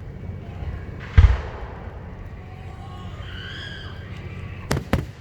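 Aerial fireworks shells bursting: one deep boom about a second in, then two sharp cracks in quick succession near the end.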